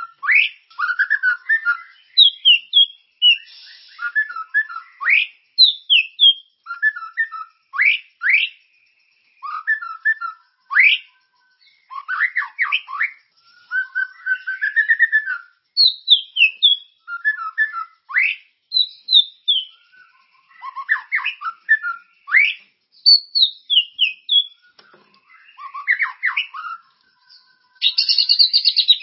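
A murai (a Copsychus songbird) singing continuously: a rapid run of varied loud whistled phrases, quick up-and-down sweeps and short trills, broken by brief pauses.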